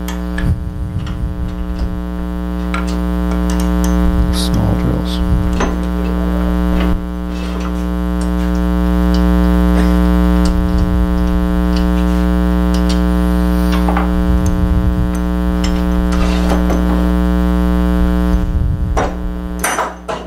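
Loud, steady electrical hum made of many evenly spaced tones, with scattered light clicks and scrapes from steel tools being handled at the lathe's tool rest.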